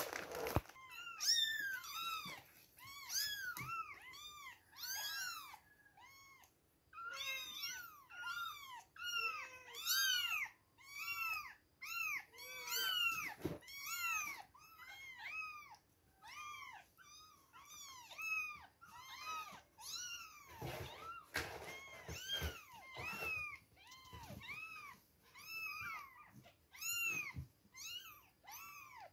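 Two-week-old kittens mewing over and over: many short, high, thin cries that rise and fall in pitch, about one to two a second, with a few soft rustles among them.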